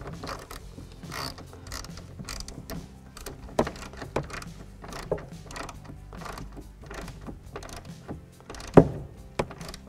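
Hand ratchet with a Torx bit tightening a hard-top mounting bolt, the pawl clicking in quick runs as the handle swings back and forth, with a sharper knock near the end.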